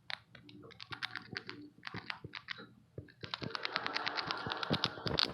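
Pet rat crunching a Dorito tortilla chip: small sharp crunches, sparse at first, then quick and continuous from about three seconds in.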